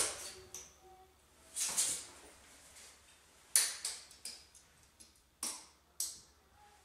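Steel tape measure being handled: a sharp click, a short rustle, then a run of sharp clicks and rattles from the blade and case.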